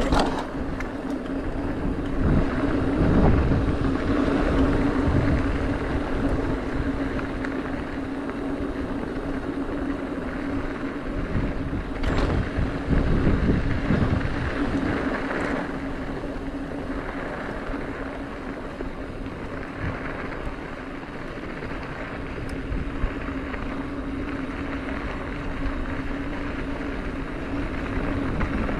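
Mountain bike rolling fast down a dirt trail: wind rushing over the camera microphone and the tyres grinding on packed dirt and gravel, with a steady hum and a few sharp knocks from bumps.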